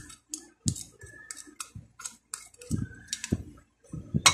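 Plastic spoon scraping and tapping against a small ceramic bowl, a quick run of light clicks and scrapes as crushed garlic is scraped out onto a plate, with a few duller knocks.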